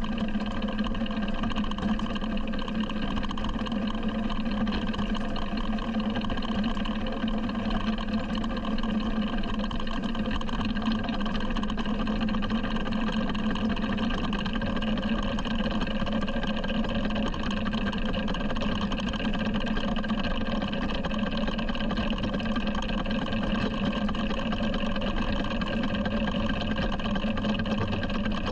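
A 7¼ inch gauge miniature steam locomotive running steadily along the track, heard from on board: an unbroken running noise with a strong low hum.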